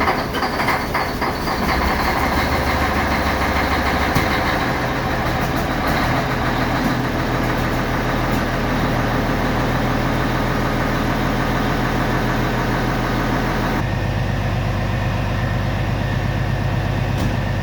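1997 Peterbilt dump truck's diesel engine running just after a hard cold start, uneven for the first second or two and then settling into a steady idle. About 14 seconds in, the sound turns lower and smoother.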